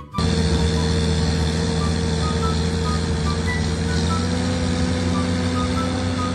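A large engine running steadily, a low, even drone that steps up slightly in pitch about four seconds in, with short high chirps scattered over it.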